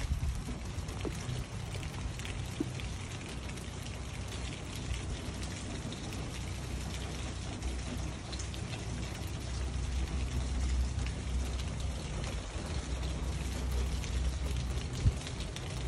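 Steady rain from Hurricane Ian falling, with a gusty low rumble of wind on the microphone. A single brief knock is heard near the end.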